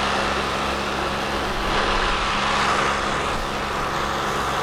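A boat's two motors running steadily under way at cruising speed, an even low hum under a steady rushing noise.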